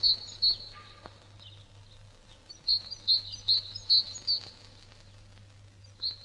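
Small songbird chirping in short high notes: a few at the start, a run of about six in the middle, and a few more near the end, over a faint steady low hum.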